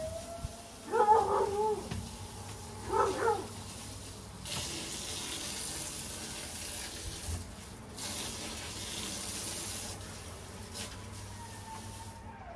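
A hound gives two short whining cries, about one and three seconds in. Then water hisses from a hose spraying the pen for several seconds, with a short break in the middle.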